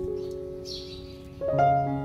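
Background music: a gentle piano melody of single held notes, with a louder new note coming in about one and a half seconds in.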